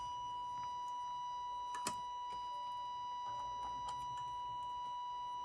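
EICO 150 solid-state signal tracer's speaker playing a steady high-pitched test tone with a string of overtones, sounding distorted because a stage isn't amplifying correctly. A sharp click comes about two seconds in.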